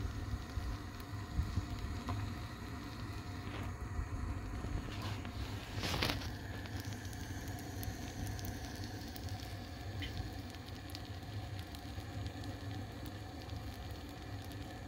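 Gas burner flame running steadily under a pan of baghrir batter, with faint crackling as the batter cooks and bubbles. A short brushing noise about six seconds in.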